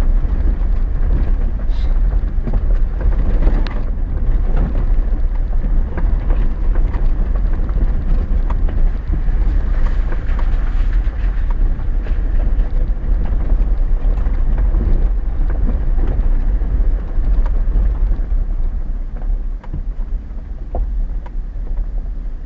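Chevy Silverado 4x4 pickup driving slowly over a rough, rocky dirt road, heard from inside the cab: a steady low rumble of engine and tyres on gravel, with scattered knocks and rattles from the bumps.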